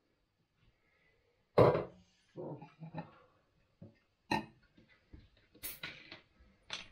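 Scattered knocks and clinks of kitchenware handled on a countertop: a bowl, a drinking glass and a plastic cola bottle. The loudest knock comes about one and a half seconds in, with sharper, brighter clinks later on.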